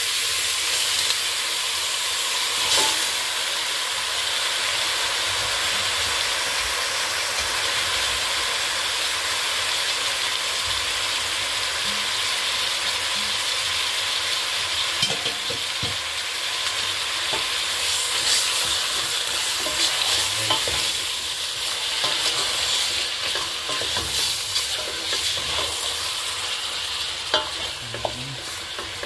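Raw chicken pieces sizzling in hot oil in a metal pot with garlic, onion and ginger, with a wooden spoon scraping and knocking against the pot as they are stirred. The sizzle is steady and eases slightly near the end, with the spoon knocks more frequent in the second half.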